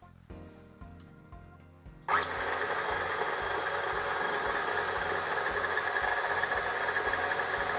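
KitchenAid stand mixer switched on about two seconds in, then running steadily as its flat beater mixes butter, sugar and egg whites in the steel bowl.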